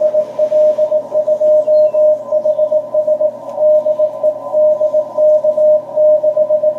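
Morse code (CW) signal on the 40 m ham band from a shortwave transceiver's speaker: a single steady mid-pitched beep keyed in quick dots and dashes without pause, over a band of receiver hiss. It is the other station's transmission being received.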